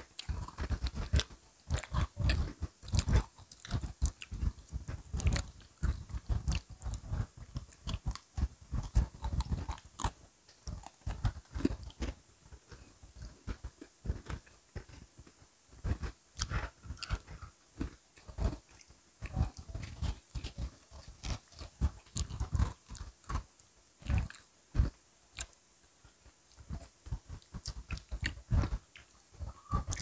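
Close-miked crunching and chewing of Oreo cookies: crisp bites and crunches following one another irregularly, with no pause.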